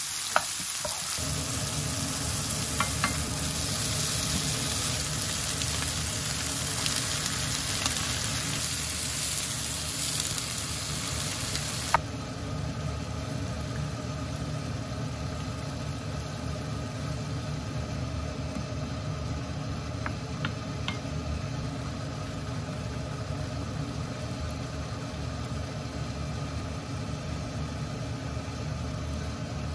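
Chopped onion and cherry tomatoes sizzling as they fry in a nonstick pan, stirred with a wooden spatula. About twelve seconds in the sizzle cuts off, and a wooden spatula goes on stirring a pan of simmering curry sauce more quietly. A steady low hum runs underneath throughout.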